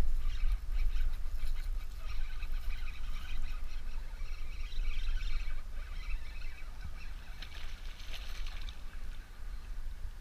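Steady low rumble of wind on the microphone, with scattered light splashing and handling noise as a small fish is swung out of the water and handled on the boat's deck.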